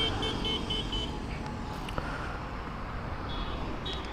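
Honda CBR250R's single-cylinder engine running steadily at low revs. A quick series of short, high beeps sounds in the first second, with a couple more short high tones near the end.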